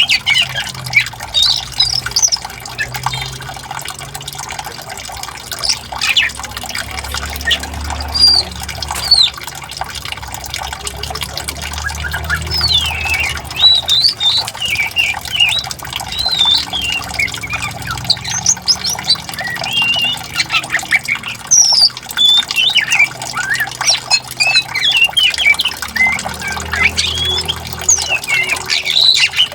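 Songbirds chirping and calling busily, many short rising and falling notes, over steadily running water.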